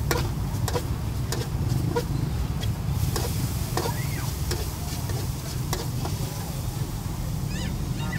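Metal spatula scraping and tapping against a large steel wok during stir-frying, a stroke roughly every half second to a second, with food sizzling in the pan over a steady low rumble.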